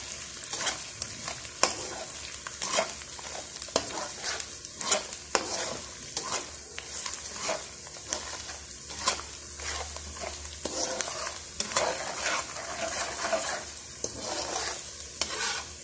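Chili paste sizzling in oil in a wok while a spatula stirs it, scraping against the pan in irregular strokes over a steady high sizzle. The paste is cooked to the point where its oil has separated out.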